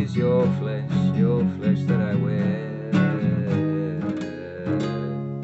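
Instrumental passage of the song: acoustic guitar playing steadily, with a wavering melodic line above it.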